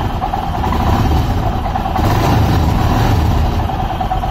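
Royal Enfield Himalayan's 411 cc single-cylinder engine idling steadily in neutral. The instrument cluster, just cleaned and refitted, no longer rattles over the engine vibration.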